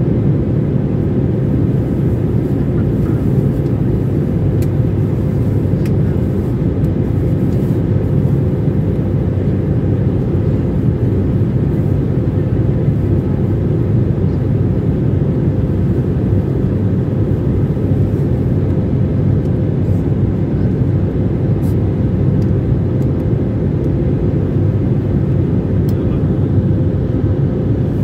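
Jet airliner cabin noise in cruise or descent: the steady roar of the turbofan engines and the airflow, heard from inside the cabin at a window seat, with a steady hum running through it.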